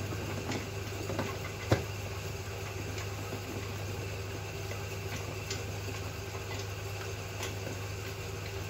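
Small electric food mincer running with a steady motor hum as it mashes boiled chicken and chana dal. There is one sharp click a little under two seconds in.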